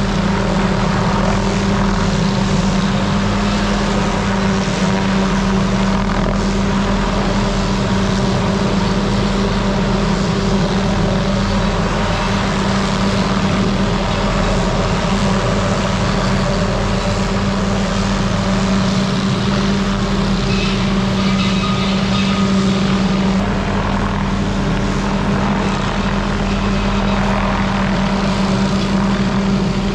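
An engine running steadily at constant speed, with a strong even hum throughout.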